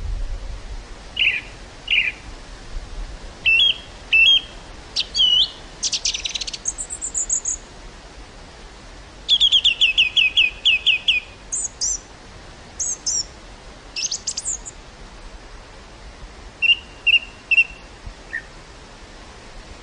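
Small songbird singing in scattered chirps and short phrases, with a rapid run of about a dozen quick descending notes near the middle, over a steady hiss of wind through the field.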